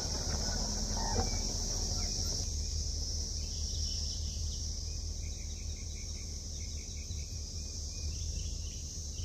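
Steady high-pitched chorus of insects, with a few faint bird chirps in the middle, over the low rumble of an engine running.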